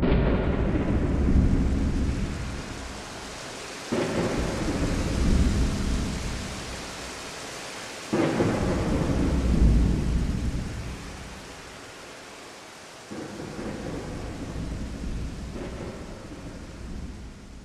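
Thunderstorm sounds: steady rain with four rolling peals of thunder, each starting suddenly and rumbling away, then the whole fading out near the end.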